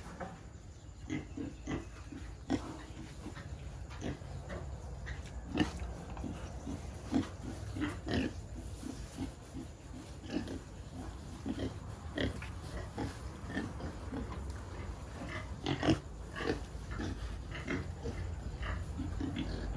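A pen of two-month-old weaner pigs grunting: many short, separate grunts throughout, with a few louder, sharper calls, over a low steady rumble.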